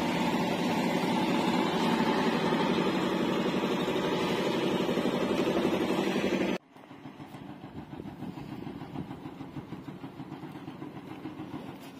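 A vehicle engine running steadily, which cuts off abruptly about six and a half seconds in. After that comes a quieter, uneven noise.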